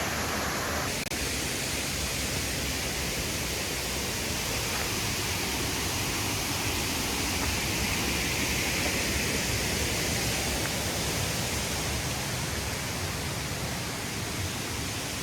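Steady rushing of water pouring from the dam, with a brief break about a second in.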